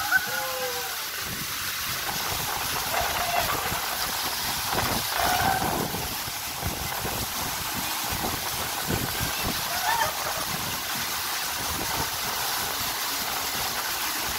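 Water running and splashing down the bowl of a funnel waterslide, a steady hiss. A rider's brief gliding shout comes right at the start, and faint voices come now and then.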